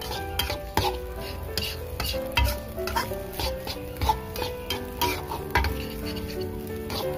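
Metal spatula scraping and knocking against a wok in repeated strokes as fried rice is stirred, with a light sizzle. Background music plays throughout.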